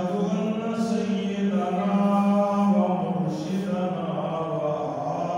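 A man chanting a melodic recitation, with long drawn-out notes.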